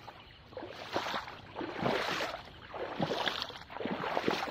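Footsteps wading through shallow floodwater and wet grass, a splashing swish with each stride about once a second.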